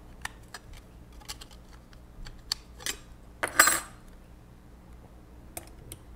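Plastic parts of a Sharp PC-1246 pocket computer's case being handled and fitted back together: scattered light clicks, with a louder clattering rattle about three and a half seconds in and a few more clicks near the end as the back cover is pressed on.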